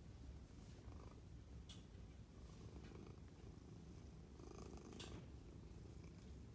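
Domestic cat purring, a faint steady low rumble, with a couple of faint clicks.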